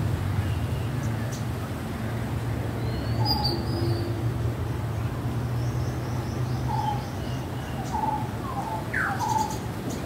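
Birds chirping and calling: scattered short chirps, a quick trill past the middle and a falling call about nine seconds in, over a steady low hum.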